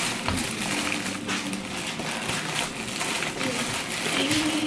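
Thin white plastic carrier bag rustling and crinkling continuously as its knotted handles are worked loose by hand.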